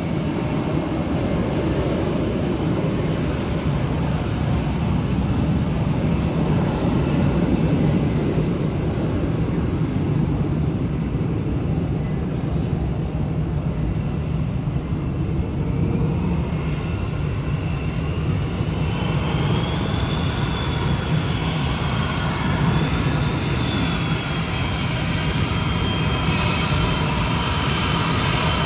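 Blue Angels F/A-18 Super Hornet twin turbofan jet engines running at taxi power, a steady low rumble. From about two-thirds of the way in, a high whine rises and wavers in pitch, and a hissing roar grows louder as a jet taxis closer.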